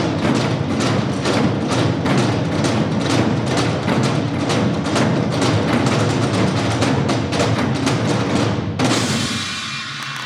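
Nanta ensemble drumming: many drums struck in a fast, dense rhythm, which stops abruptly about nine seconds in.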